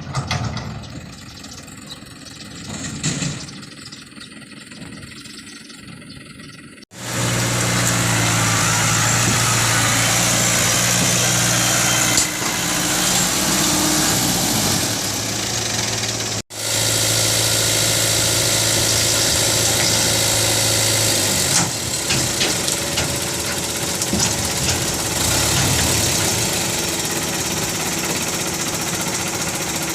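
Diesel engine of heavy machinery running steadily at close range. After a quieter stretch of about seven seconds it starts abruptly, loud, and cuts out sharply and resumes about halfway through.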